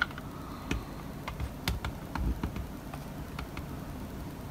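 Faint, irregular light clicks and ticks from a digital microscope's stand and focus mechanism being handled and adjusted as it is lowered into focus.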